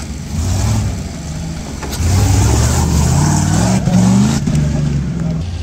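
Engine of a tube-frame off-road buggy revving, loudest from about two seconds in, its pitch climbing before it drops back to a lower steady run near the end.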